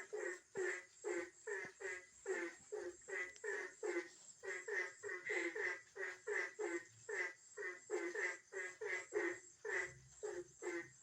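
Frogs croaking at night, short calls repeated about three times a second without pause, over a steady high insect trill.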